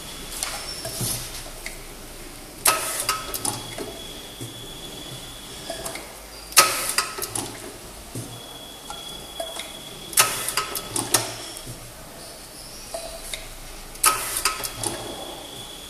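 ZONESUN semi-automatic round-bottle labeling machine with date printer working through bottles in four cycles: each begins with a sharp clack, then about a second of clicking and a low motor hum as the bottle is rolled and labeled, with a faint high whine between cycles.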